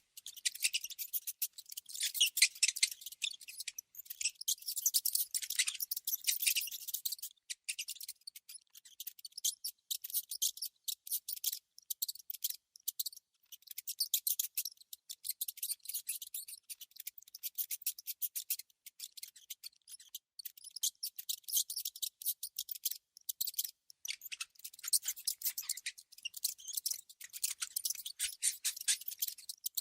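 Small rodents making fast, dry, scratchy clicking, typical of gnawing, in dense high-pitched runs broken by a few brief pauses.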